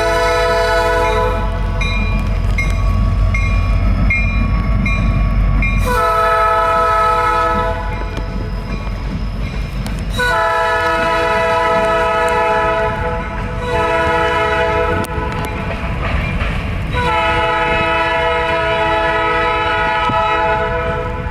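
Passing freight train's diesel locomotives sounding a multi-chime air horn in several long blasts, with the locomotive bell ringing in short strokes between the first blasts and the engines rumbling underneath.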